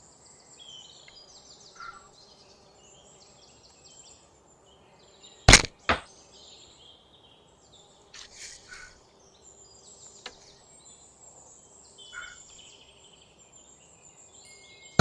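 An arrow shot from a hand-built laminate hybrid Hun-style recurve bow with a horn belly: a sharp snap of the string on release, then a second smack about half a second later as the arrow hits the target. Near the end the next shot's release snap comes. Birds chirp throughout.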